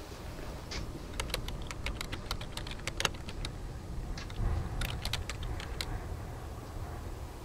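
Typing on a computer keyboard: two short, irregular runs of keystroke clicks over a steady low rumble.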